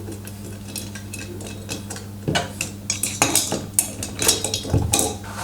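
Metal clinking and rattling as the Yamaha XT600E's cam chain is fed up through the cylinder head and the head is set down on the cylinder, with irregular sharp clinks that come thicker in the second half.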